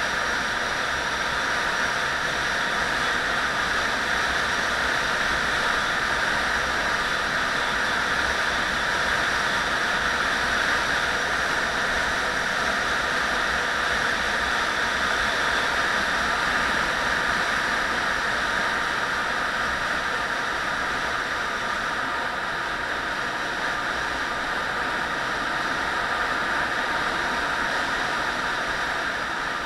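Steady rush of wind and road noise from a vehicle travelling along a narrow asphalt road, easing slightly near the end.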